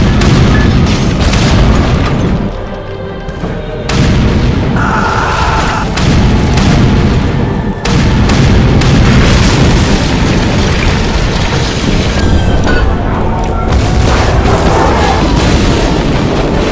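Movie battle soundtrack: heavy ship's cannon booms and explosions over music. There is a short quieter stretch about two seconds in, and loud hits come again at about four and eight seconds.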